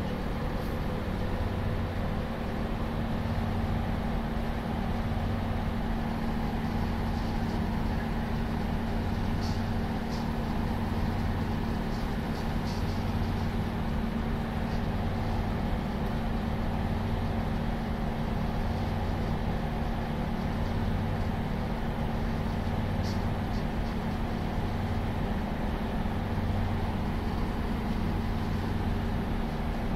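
Domestic cat purring while it is stroked: a low rumbling throb that swells and fades about every second and a half with its breathing, over a steady low hum.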